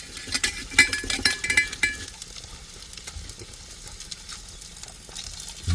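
Duck meat sizzling on a small grill plate, a steady crackle. Between about half a second and two seconds in there are several light clinks, with a short ring to them.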